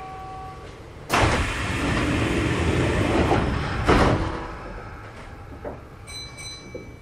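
Kintetsu 1430-series train's sliding doors closing: a sudden hiss of air about a second in that holds for about three seconds, then a knock as the doors shut, after which it dies away.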